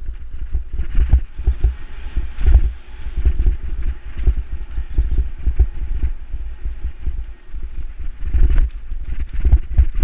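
Specialized Stumpjumper mountain bike ridden fast over a bumpy dirt singletrack: tyres rumbling over dirt and leaves, with the frame and chain rattling and knocking on every bump, and wind buffeting the microphone.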